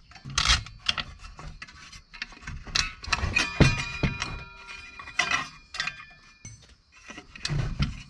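Clinks and knocks of metal hand tools and an old Black & Decker circular saw being handled and turned over on a wooden workbench. A clear metallic ring hangs on for about three seconds midway.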